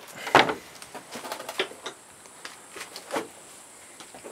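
Handling noise at the car's open bonnet: one sharp knock about half a second in, then a run of light clicks and taps that die away after about three seconds.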